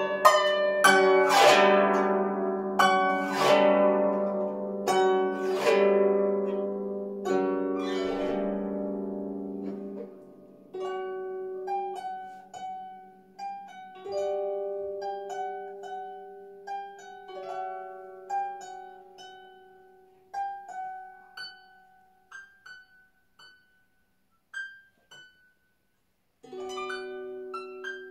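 Solo harp: loud swept, rolled chords for about ten seconds, then quieter, sparse single plucked notes with pauses between them, and fuller chords again near the end.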